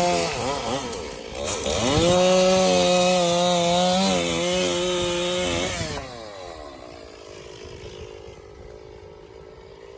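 Stihl MS460 two-stroke chainsaw at full throttle bucking an elm log. It drops back about half a second in, revs up again around two seconds in and holds for about four seconds, then falls back to a quiet idle about six seconds in.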